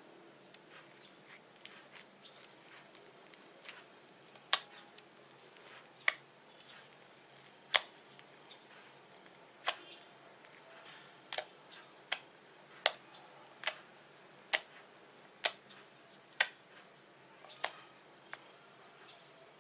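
Fluffy slime being squeezed and poked, giving a string of short, sharp pops as air pockets burst, about a dozen of them, irregularly spaced roughly a second apart and mostly in the second half.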